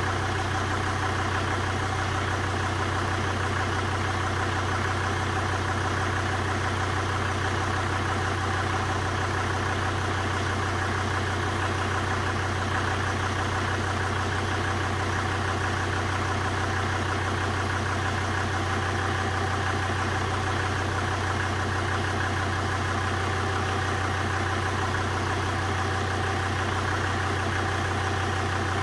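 Volvo V70 D5's five-cylinder turbodiesel idling steadily, keeping the automatic gearbox pumping transmission fluid out through a hose during a fluid flush.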